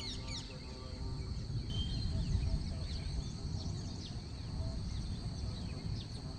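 Small birds chirping in many quick, short notes over a steady, high-pitched insect drone, with a low rumble underneath.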